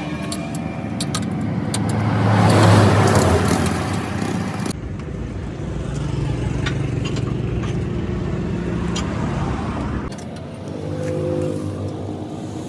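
Motor vehicle engines running, with one vehicle swelling loudest about two to three seconds in, like a pass-by, and scattered sharp clicks. The sound changes abruptly twice, about a third of the way in and again near the end.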